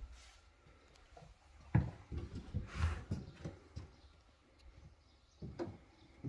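Footsteps on wooden decking: a run of low, irregular thumps starting about two seconds in, with a few more near the end.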